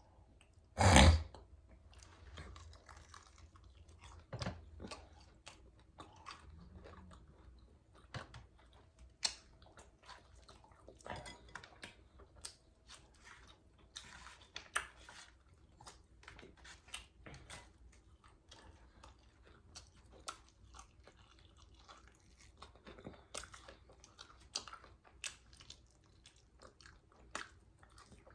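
Close-miked eating of fried chicken wings: biting and chewing in irregular short, clicky mouth sounds, with one much louder sharp knock about a second in.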